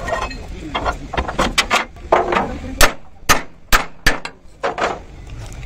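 A hand hammer knocking on a steel plate and screw clamp fitted to a truck chassis rail, setting the plate in place before it is welded. It makes a dozen or so sharp metallic knocks at an uneven pace, the loudest about three seconds in.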